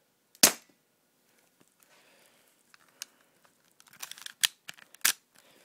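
UHC Ruger P98 spring airsoft pistol being shot and handled: a sharp snap about half a second in, then a run of smaller clicks and a second sharp snap about five seconds in.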